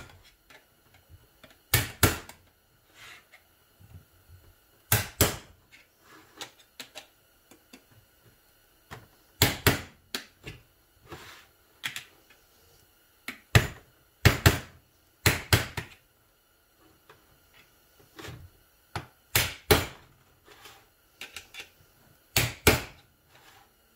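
Hammer striking a screwdriver to drive a large metal snap ring into its groove in a Ford C6 transmission clutch drum, holding down the dished wafer plate. Sharp metal taps, mostly in quick pairs every few seconds, with light clicks of the ring and tools between.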